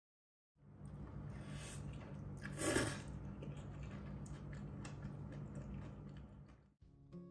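Steady low hum of room noise, with a short, louder rustling noise about two and a half seconds in and a few faint clicks.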